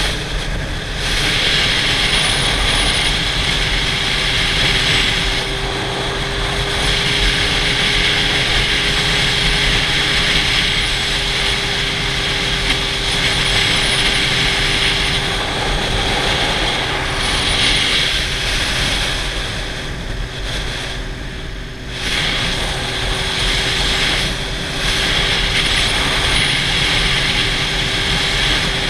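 Sport motorcycle riding at road speed: wind rushing over the camera with a steady engine drone underneath, easing off briefly a few times.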